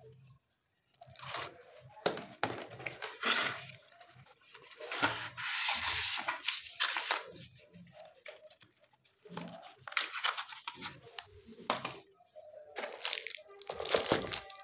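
Cardboard packaging, paper cards and plastic wrap being handled in an unboxing: irregular rustling, rubbing and sliding in bursts, with short pauses between handfuls.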